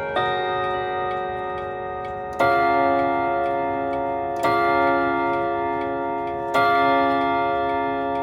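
1929 Herschede two-chime mantel clock's tuned chime rods: a last chime note near the start, then the hour being struck on a deeper rod, three strokes about two seconds apart, each ringing on into the next.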